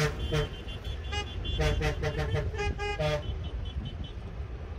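Tractor horns tooting in a rapid series of short blasts, at least two horns at slightly different pitches, over a steady low engine rumble.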